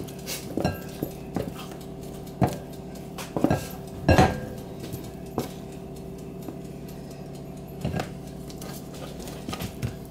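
Wooden spatula scraping and knocking against a plastic storage box as sticky bread dough is worked out of it: scattered knocks and scrapes, the loudest about four seconds in.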